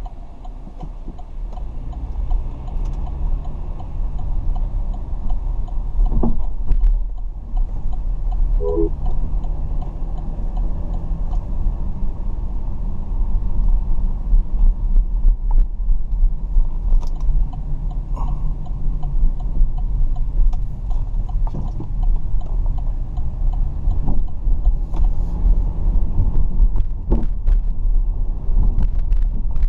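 Car on the move: a steady low engine and road rumble, with a few brief clicks.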